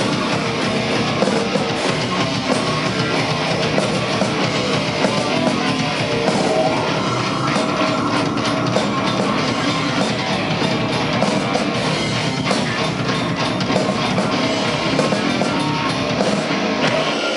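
Heavy metal band playing live: distorted electric guitars over a pounding drum kit, loud and dense throughout. The deep bass drops out just before the end.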